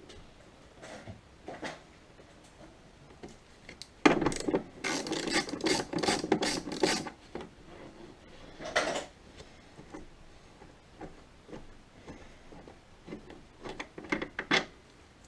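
Hand-worked scraping strokes, like filing or rasping, on a workpiece. A loud run of about three strokes a second lasts some three seconds, then single scrapes and a short burst follow near the end.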